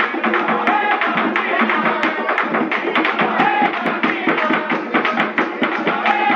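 Traditional Choroní street music: quick, dense hand-drum strokes with hand clapping and a group of people singing.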